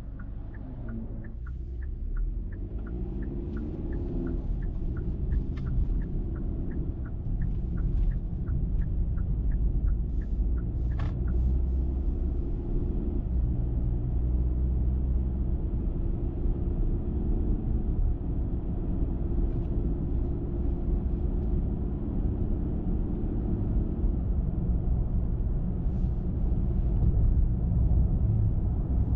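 Car engine and tyre rumble heard from inside the car, building over the first few seconds as the car speeds up, then running steadily. A regular ticking, about two to three a second, typical of a turn signal, runs through the first ten seconds and then stops.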